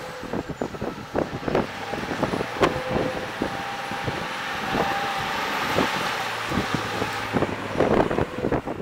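Pickup truck's engine pulling steadily under load as it drives through deep mud, with many irregular knocks; the steady engine note drops away about seven seconds in.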